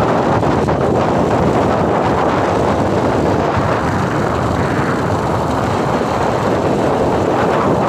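Steady wind rushing over the microphone on a moving Hero Honda Passion Plus motorcycle, mixed with the run of its small single-cylinder four-stroke engine at an even cruising speed.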